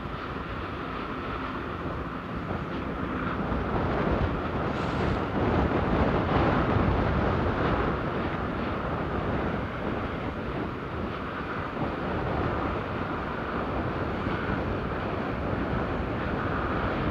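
Continuous rumbling, churning noise of a lava fountain spattering from a fissure-eruption vent, mixed with wind buffeting the phone's microphone. It swells louder from about four to seven seconds in.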